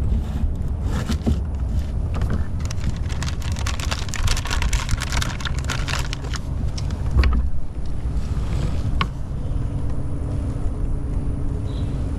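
Wind rumbling on the microphone throughout. From about one to seven seconds in there is a dense run of rustling and clicking as fishing tackle is handled to change baits, then a single thump about seven seconds in.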